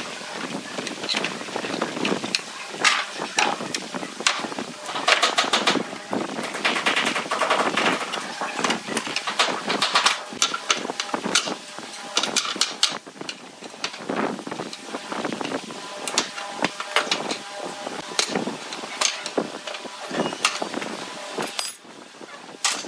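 A steel pry bar prying the slats off an old wooden pallet: a rapid, irregular string of sharp cracks and knocks as nailed boards split away and clatter onto the concrete floor.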